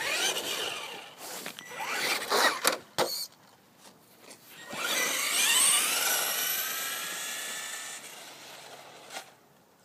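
Electric motor of an RC car whining in short bursts. About five seconds in it spins up to a high, rising whine that holds, then slowly dies away.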